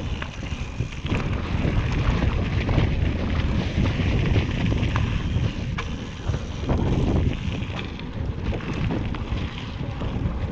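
Wind rushing over the microphone of a GoPro Hero 6 on a mountain bike riding down a forest singletrack, a steady low rumble with scattered short clicks and knocks from the bike and trail.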